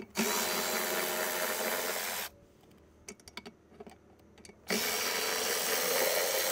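Cordless power ratchet running in two bursts of about two seconds each, with small clicks between them, as it works fasteners on an outboard's powerhead.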